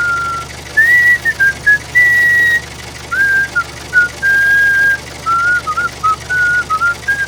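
Whistled tune: a single pure melody line of short notes with small slides between pitches, and a few longer held notes, over a faint low hum.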